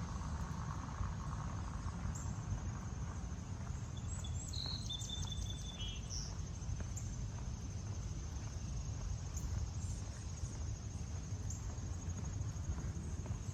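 Insects trilling steadily in a high, fast-pulsing chorus over a low outdoor rumble, with a short high chirp about five seconds in.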